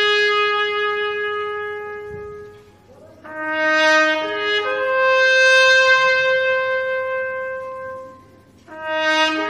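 Trumpet playing a slow melody in long held notes. The phrases break off briefly about three seconds in and again near the end.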